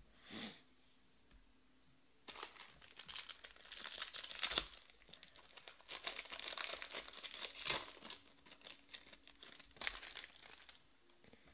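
Foil trading-card pack being torn open and crinkled by hand, a dense crackling rustle that starts about two seconds in and runs for several seconds, with another short bout of crinkling about ten seconds in as the cards are pulled from the wrapper.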